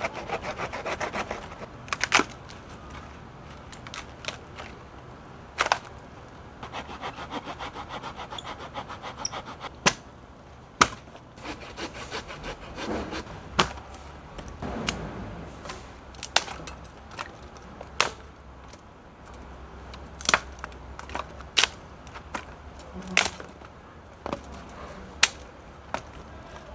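Hand saw cutting a dry branch in quick back-and-forth strokes, in two short runs. Between and after them come single sharp cracks and knocks of dry sticks being handled and piled to build a wood fire.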